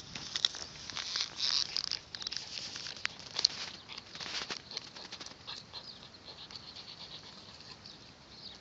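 A young dog gnawing a wooden stick held between its paws: irregular crunching clicks of teeth on wood, the sharpest about three and a half seconds in.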